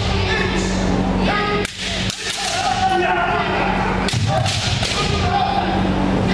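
Kendo sparring: bamboo shinai cracking sharply against armour and against each other in many quick strikes, over several people's held kiai shouts.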